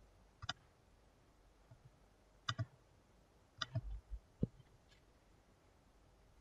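Computer mouse clicking a handful of times, some clicks in quick pairs, with a soft low thump about four seconds in.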